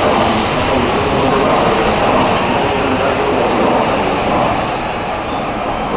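Train moving through the station, a steady loud rail rumble, with a thin high wheel squeal setting in about halfway through.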